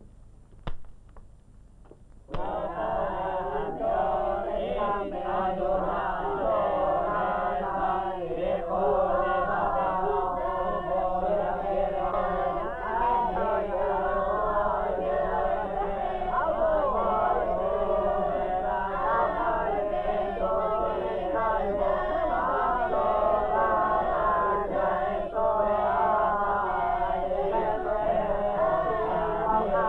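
A group of boys chanting their reading aloud together, many voices overlapping in a continuous recitation. It starts abruptly about two seconds in.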